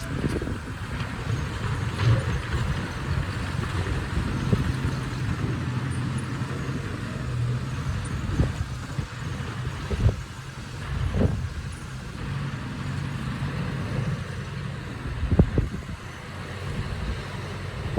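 Bulldozer's diesel engine running steadily, with several short knocks and clanks through it.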